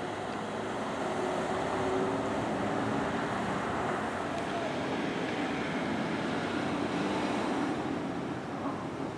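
Road traffic going by: a steady wash of engine and tyre noise that swells slightly as vehicles pass.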